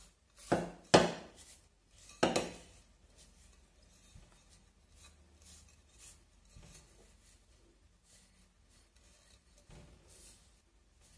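Three hard knocks of objects handled on a work surface in the first couple of seconds, then faint rubbing as a cloth wipes excess bitumen off a ceramic vase.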